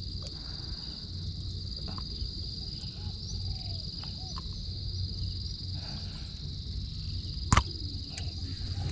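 Insects chirring in a steady, high-pitched chorus, with a single sharp knock about three-quarters of the way through.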